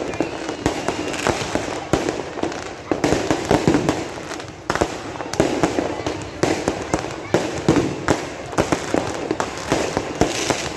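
Fireworks exploding in a dense, continuous barrage: many sharp bangs, several a second, overlapping one another.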